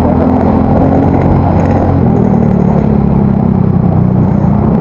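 Yamaha Mio Soul GT scooter's single-cylinder four-stroke engine, breathing through an aftermarket exhaust, running at a steady, even speed with road traffic around it.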